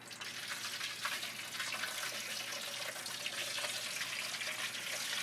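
Hot oil in a turkey fryer sizzling and bubbling hard around a whole turkey going into it. A dense crackling hiss builds over the first second, then holds steady.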